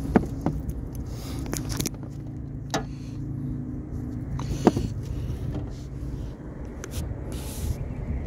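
Small electric trolling motor humming steadily, fading out about six seconds in, with scattered sharp clicks and knocks; the loudest come near the start and just before five seconds.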